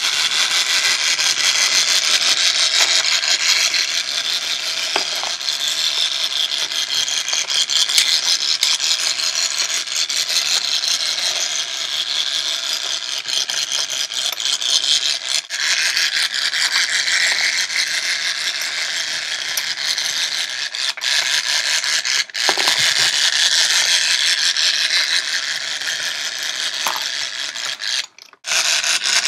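Battery-powered pocket toy fishing game running: its small motor and plastic gears turn the fish pond with a steady, rapid clicking rattle, which drops out briefly near the end.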